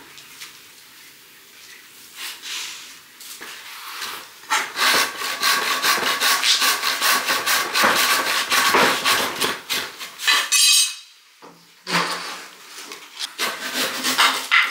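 Handsaw cutting through a weathered wooden beam in fast back-and-forth strokes, starting about four seconds in and stopping about ten seconds in. A few wooden knocks follow near the end.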